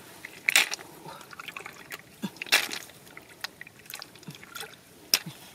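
Hands picking snails out of shallow muddy water: a few irregular short splashes and drips as water runs off the hands and shells.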